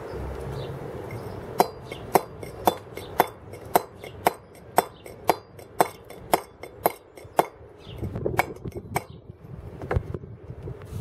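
A round wooden carver's mallet drives a steel chisel into a block of white stone, roughing out the basic profile. About a dozen even, clinking blows come about two a second, then a few lighter irregular knocks and a last knock near the end.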